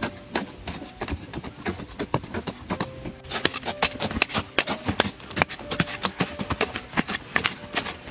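Hand digging tools chopping into dry, sandy soil in quick, irregular strikes, several a second and denser from about three seconds in, with loose earth scraping and falling.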